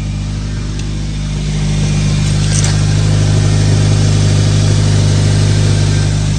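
Nissan Sentra's four-cylinder engine idling just after start-up, heard at the exhaust through a newly fitted replacement muffler: a steady low hum that swells slightly about a second and a half in and eases back near the end. The exhaust is running quiet, with no rattle or blowing leak.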